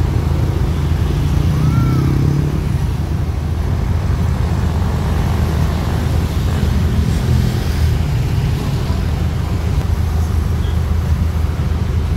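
City road traffic: a steady low rumble of car and motorcycle engines and tyres, with a short rising-and-falling squeak about two seconds in.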